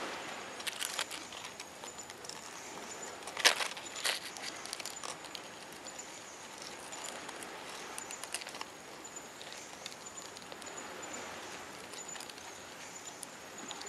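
Land hermit crabs scrabbling over dry leaves and shells: scattered rustles and small clicks over a steady hiss, with two sharper clicks about three and a half seconds in, half a second apart.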